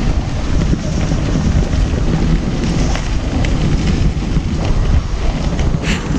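Heavy wind noise buffeting the microphone, a steady loud rumble, while riding a Ninebot One E+ electric unicycle along a dirt trail.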